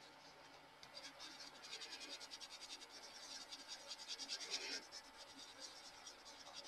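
Faint scratching of an orange Prismacolor coloured pencil on smooth Bristol paper in rapid back-and-forth strokes. It starts about a second in, is strongest around the middle and eases off near the end.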